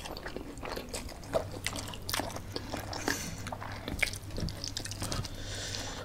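Close-miked eating: noodles slurped and chewed, with many short wet smacking clicks and a couple of airy slurps, one about three seconds in and one near the end.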